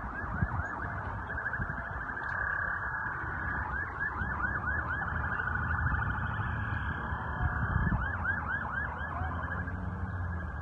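A siren going in a fast, repeating rise-and-fall pattern, in short runs of about four chirps a second, over a low steady rumble.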